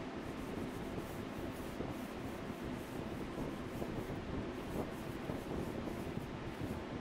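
Sanding sponge rubbed back and forth by hand over the wooden legs of an old pedestal table base: a steady scratchy rubbing, stroke after stroke.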